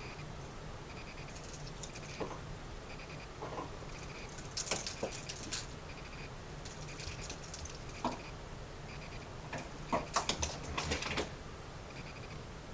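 A cat's rattle ball jingling and rattling in four short spells as the cat bats it and it rolls. The loudest spells are in the middle and near the end.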